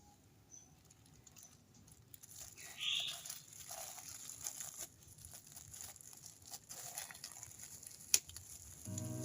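Faint rustling, crinkling and small clicks of packaging being handled and unwrapped, with one sharp click near the end. Acoustic guitar music starts just as it ends.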